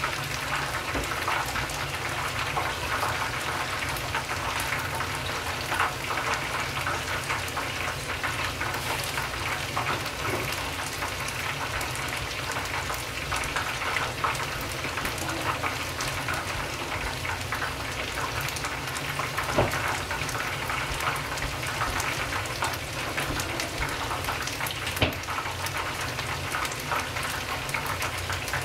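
Karaage (Japanese fried chicken) deep-frying in a pot of hot oil: a steady, dense crackling sizzle with a few louder pops.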